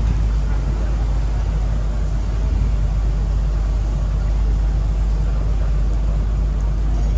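Steady rumble of a moving double-decker tour bus heard from its upper deck, with heavy, even wind noise on the microphone.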